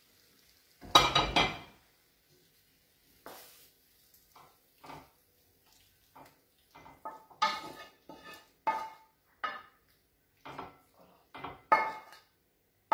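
Pasta being served from a metal frying pan onto a ceramic plate: a loud clatter of plate and pan about a second in, then a run of sharp clinks and scrapes of a utensil against the pan and plate from about seven seconds on.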